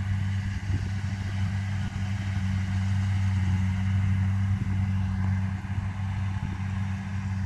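Kubota DC70 rice combine harvester's diesel engine running steadily while cutting rice, an even low drone heard from across the field.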